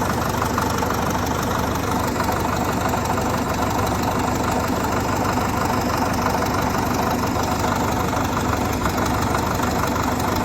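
1963 Caterpillar D7E bulldozer's diesel engine idling steadily, left running during a check for bubbles.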